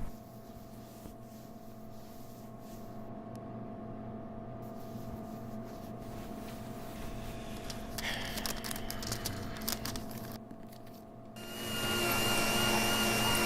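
A low, steady hum with a few scattered clicks. About eleven seconds in, a louder motor-driven machine starts up, a steady hiss with a high whine over it.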